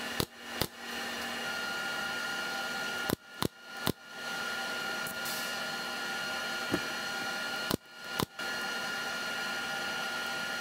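Pneumatic brad nailer firing into thin plywood siding strips: sharp single shots, two near the start, three around three to four seconds in and two around eight seconds in. A steady mechanical hum runs underneath.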